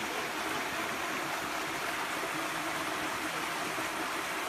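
Shallow stream water running steadily over rock, an even rushing hiss.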